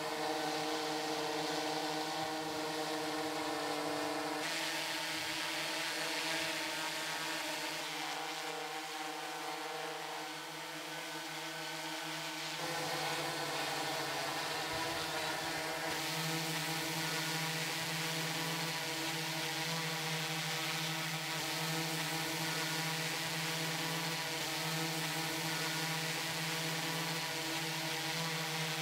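Quadcopter drone's four electric rotors buzzing steadily in flight, a hum of several steady tones. The pitch and mix of the tones shift abruptly a few times.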